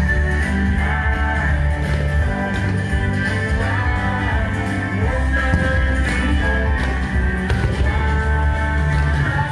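Loud music with a heavy, steady bass and sustained melody lines.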